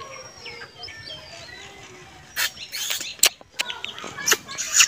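Crab shell cracking and crunching between the teeth, several sharp cracks in the second half. Birds chirp throughout.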